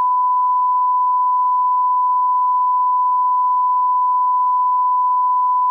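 Steady electronic test-tone beep at one unchanging pitch, the reference tone that goes with a colour-bars test card, used as an edit break. It cuts off suddenly just after the end.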